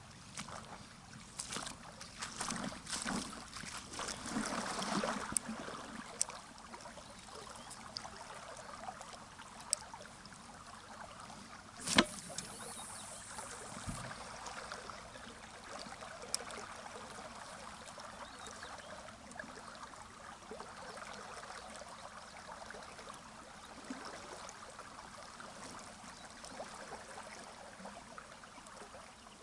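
Steady rush of a mountain river flowing. Scattered clicks and handling noises in the first few seconds, and one sharp knock about twelve seconds in.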